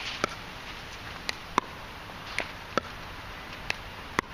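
A hard plastic pickleball being struck by a paddle and bouncing on the hard court: about seven sharp, short pocks at uneven intervals.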